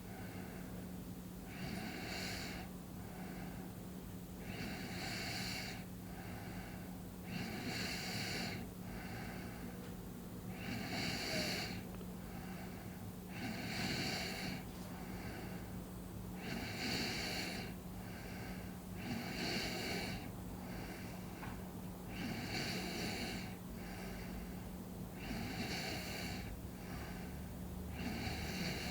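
A person asleep, snoring softly and breathing heavily in a slow, even rhythm. A louder breath comes about every three seconds, each followed by a fainter one, over a steady low hum.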